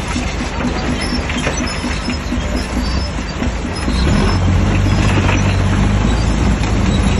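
Shantui DH17C3 crawler bulldozer working: a steady diesel engine note with the clatter and squeal of its steel tracks, growing louder about four seconds in as it comes under load.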